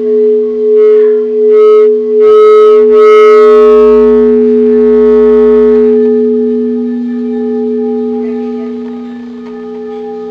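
A compact, homogeneous stone ringing with a clear, crystalline, bell-like tone of two steady pitches. It is set sounding by a few strokes in the first three seconds, then rings on and slowly fades.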